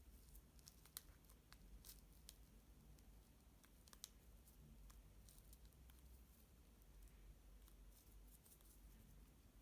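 Near silence: room tone with a few faint scattered clicks and taps, the clearest about one second and four seconds in.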